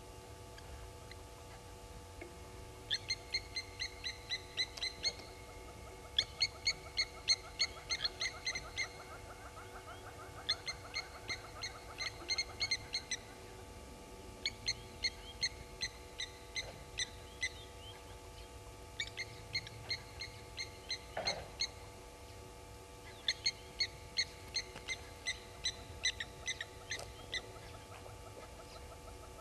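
Blacksmith lapwings giving their metallic 'tink-tink-tink' alarm calls, mobbing an African harrier-hawk. The calls are sharp, ringing clicks in quick runs of two to three seconds, repeated six times.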